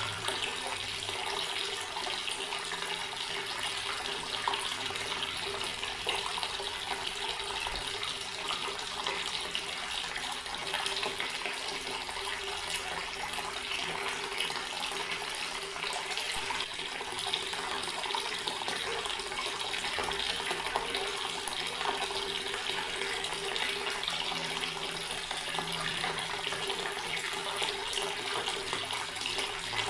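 Garden water tap running steadily, a continuous stream of water.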